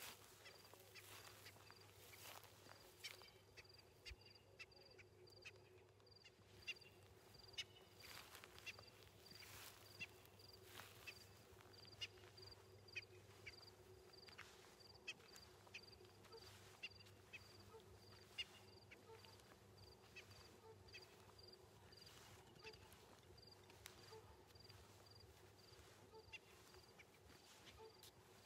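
Faint outdoor bush ambience, close to silence: a high, thin pip repeats about twice a second throughout, joined about halfway by a lower call repeating about once a second, with scattered faint clicks.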